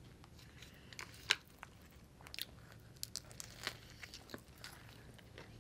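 Close-miked eating, a lox and bagel sandwich being bitten and chewed: faint scattered crunches and small wet mouth clicks, with one sharper click about a second in.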